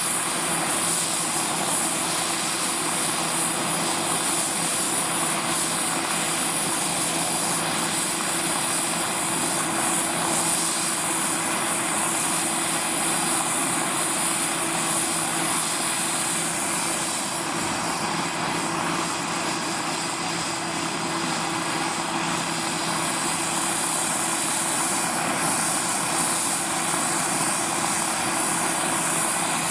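A radio-controlled scale model helicopter running steadily, its engine and rotors making a continuous sound with steady tones. It dips slightly in loudness about two-thirds of the way through, then comes back up.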